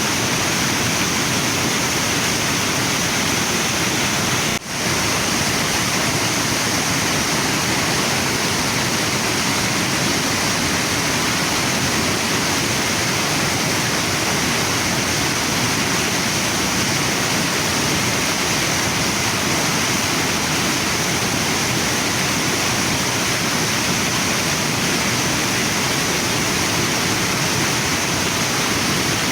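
Waterfall and river water rushing in a steady, dense roar, with a momentary dip in level about four and a half seconds in.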